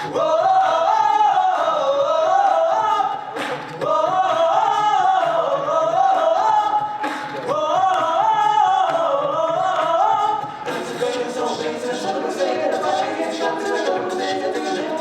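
An a cappella vocal group singing: a lead voice sings wavering melodic phrases over the backing voices. About ten seconds in, the lead drops away and the stacked backing voices continue over a quick rhythmic vocal-percussion beat.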